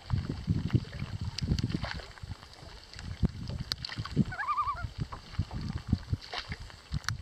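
Water lapping and sloshing in repeated low bursts. About four and a half seconds in, a common loon gives one short quavering tremolo call.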